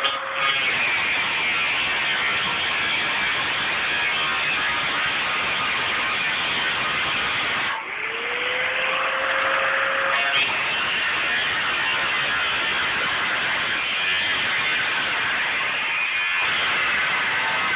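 Angle grinder with a cutoff wheel cutting through a steel water-heater tank, a loud, steady grinding. About 8 seconds in the wheel lets up briefly and the motor's whine rises as it spins back up, then it bites back into the metal.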